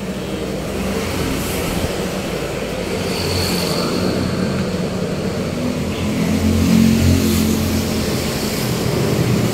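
A motor vehicle's engine running nearby, a steady low rumble that grows louder from about three seconds in and is loudest around seven seconds in.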